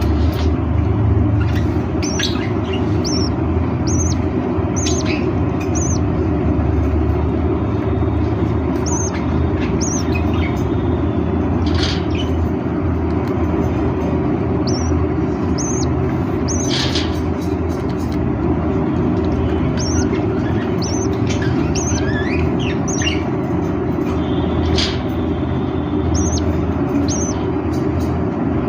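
Budgerigars chirping, short high calls scattered every second or two, over a loud steady low rumble.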